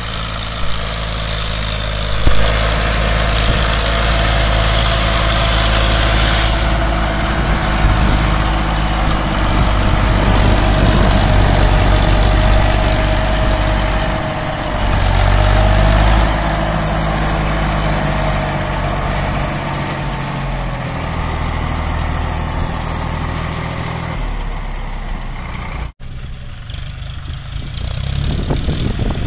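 Diesel tractor engines running hard under load as they haul loaded trolleys up a sand slope, the engine note rising and falling with the effort. The sound changes abruptly about 26 seconds in as a different tractor takes over.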